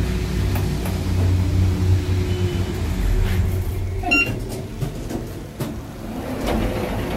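Majes passenger elevator car travelling with a low hum that fades as it slows and stops about three seconds in, then a short electronic beep about four seconds in as it arrives. Near the end come clicks and the sound of the car doors starting to open.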